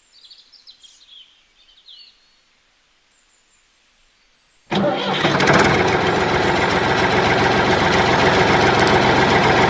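A motor driving a DIY mini tractor model starts abruptly about halfway in and runs loud and steady. A few faint bird chirps come before it.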